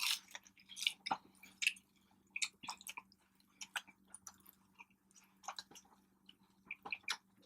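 Close-miked chewing of food, a scatter of short, irregular mouth clicks and smacks, over a faint, steady low hum.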